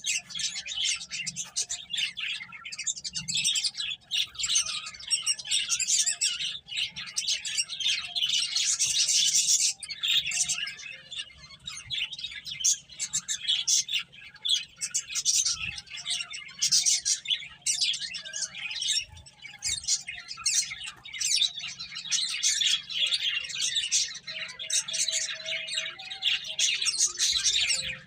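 A group of pet finches chirping continuously, many short high calls overlapping with one another.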